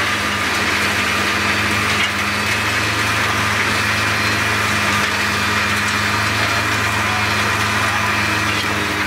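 Albach Diamant 2000 wood chipper's six-cylinder, 770 hp engine and chipping drum running steadily with nothing being fed, a constant low hum under an even whirring noise.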